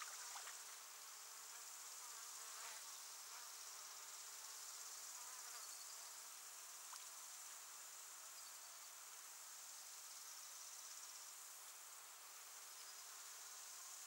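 Faint, steady high-pitched insect chorus, like crickets or bush crickets trilling, with a few faint ticks.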